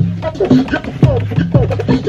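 Vinyl record scratched back and forth on a turntable, making quick rising and falling sweeps, over a steady beat with a deep bass line.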